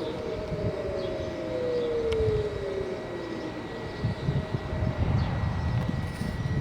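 Civil defence warning sirens winding down. One tone holds steady while others slide down in pitch and fade out within about four seconds, leaving a low rumble.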